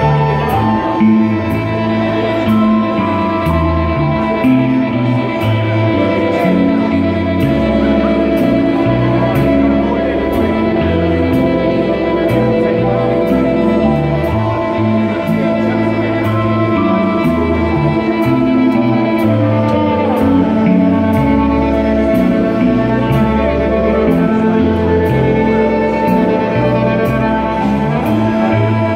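Rock band playing live through an instrumental stretch without vocals: electric guitars, bass and a drum kit under long held tones, with steady ticking high in the mix.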